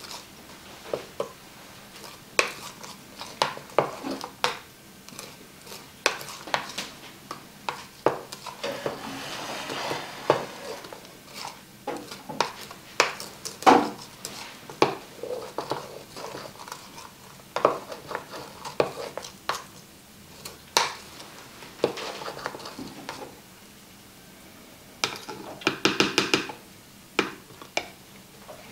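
Metal spoon stirring food in a dish, knocking and scraping against it in irregular clinks, with a quick run of clicks near the end.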